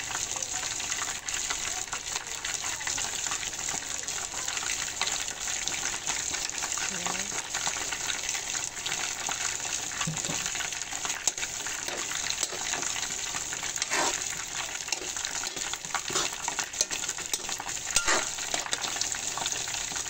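Chicken pieces cooking in tomato sauce in a pan, sizzling with a steady hiss, while a metal spoon stirs them, with a few sharp clinks of the spoon against the pan.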